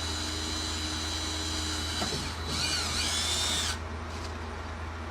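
A small electric motor running steadily, like a power tool, with a constant high whine. A wavering high-pitched squeal comes in briefly in the middle.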